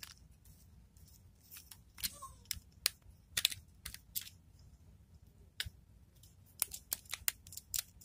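Irregular small clicks and scrapes from a screwdriver working the terminal screws of a magnetic contactor while copper wire ends are fitted into the terminals, bunched in two spells.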